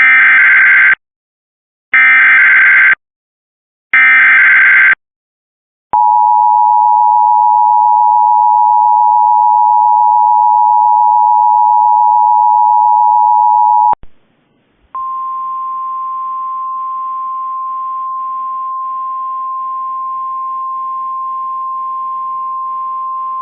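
Emergency Alert System alert opening: three SAME header data bursts, each about a second long with a second between them. Then the two-tone EAS attention signal (853 and 960 Hz) holds steady for about eight seconds. After a second's pause, a steady single tone near 1050 Hz, the NOAA Weather Radio warning alarm tone, runs for about nine seconds.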